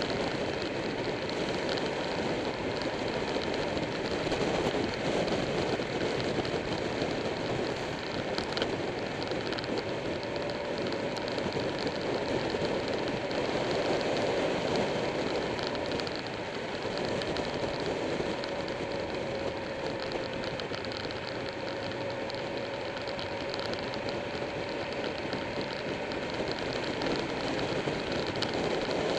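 Motorcycle riding at speed: wind rushing over the bike-mounted microphone, with the engine droning steadily underneath and wavering slightly in pitch through the bends.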